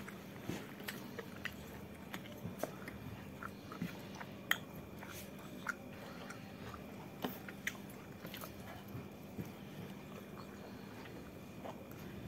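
Close-up eating sounds: a person chewing luchi (puffy fried flatbread) with chilli chicken eaten by hand, with scattered short wet mouth clicks and smacks. A faint steady hum lies underneath.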